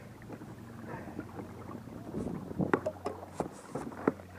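Small waves lapping and slapping against a plastic Hobie kayak hull, with a handful of irregular sharp knocks from about two seconds in; the two loudest come about halfway through and near the end.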